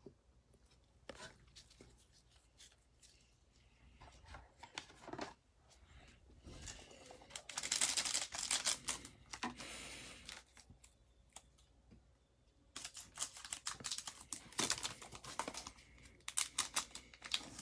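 The plastic wrapper of a Panini Mosaic cello pack of trading cards being torn open about halfway through, followed by crinkling of the wrapper and rustling of the cards near the end.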